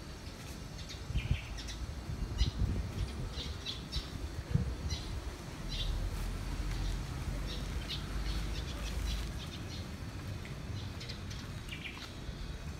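Small birds chirping in short, scattered calls, over a low rumble that swells for a few seconds in the middle, with a few dull thumps early on.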